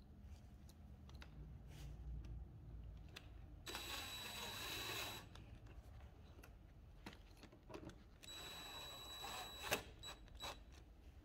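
Cordless drill driving a small screw into a wooden trigger part: two short runs of a steady motor whine, each about a second and a half, the second ending in a sharp click. Light handling clicks sound between the runs.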